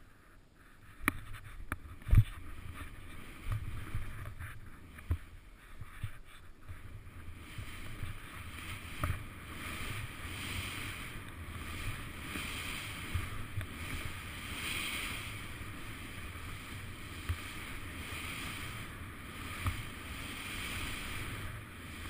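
Skis hissing through powder snow in a run of turns, the hiss swelling and fading with each turn, with wind on the microphone. A few sharp knocks come in the first several seconds, the loudest about two seconds in.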